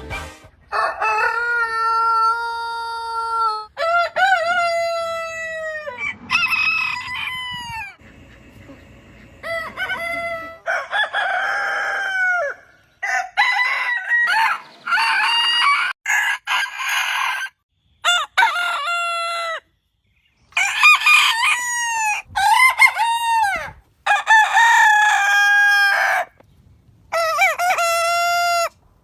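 Roosters crowing: about ten long cock-a-doodle-doo calls in a row, each holding its pitch and then dropping away at the end. The calls are separated by abrupt cuts and sudden changes in loudness.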